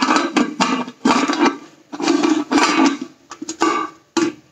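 The lid of a 3-litre aluminium pressure cooker scraping and clanking against the cooker's rim as it is worked in and out of the body. There are about eight short strokes in a row, fading off near the end.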